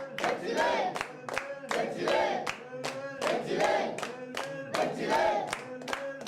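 Clamour of a nesting waterbird colony: many birds calling over one another with sharp clicking, the din swelling roughly once a second, the sound of chicks begging as their parents bring food.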